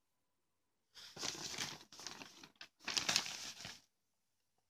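Paper leaflet pages being handled and turned: two crinkly rustles of about a second each, the first starting about a second in, with a short tap between them.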